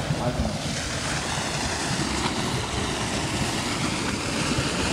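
Steady rushing of a flood-swollen river, with wind buffeting the microphone.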